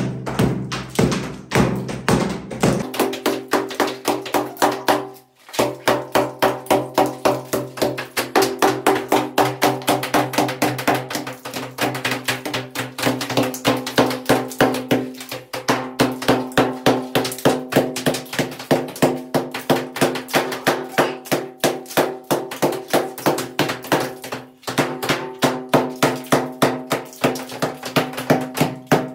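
Background music with a quick, steady percussive beat over sustained pitched notes, cut off briefly twice.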